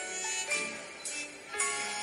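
End-credits music: a light tune of short notes stepping up and down in pitch.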